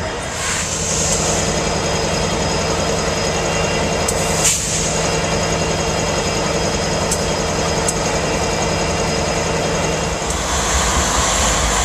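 Diesel freight locomotives idling with a steady engine drone and hum, with a single sharp click about four and a half seconds in and a hiss near the end.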